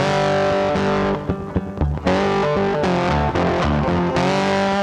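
Rock music with distorted electric guitar, dipping briefly about a second in.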